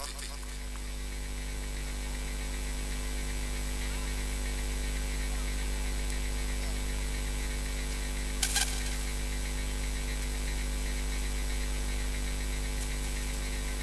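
Steady electrical mains hum with overtones on the open commentary sound system, and a brief crackle of static a little past halfway.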